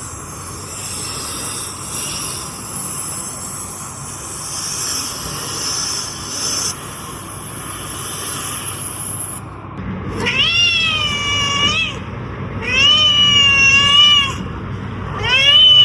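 A steady hissing noise, followed about ten seconds in by a cat meowing three times, each a long call that rises and then falls in pitch.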